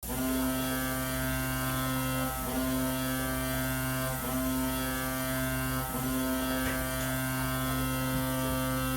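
Colorado Avalanche arena goal horn sounding a long, steady, low blast that dips briefly three times.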